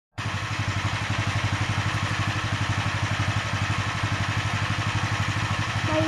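Small sawmill's engine running steadily at idle with an even, rapid low pulse.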